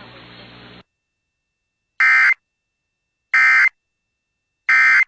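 Emergency Alert System end-of-message signal: three short, loud bursts of digital data screech, evenly spaced about a second and a half apart, marking the end of the warning broadcast. Before them, a faint hiss cuts off under a second in.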